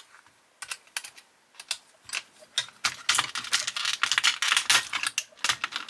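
Light clicks and taps of plastic and metal parts as a 1:18 Bburago diecast model car is handled and turned over, few at first and coming thick and fast from about halfway.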